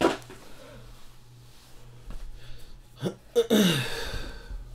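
A sharp knock at the very start, then about three seconds in a man's brief wordless vocal sound that falls in pitch, such as a grunt or throat noise.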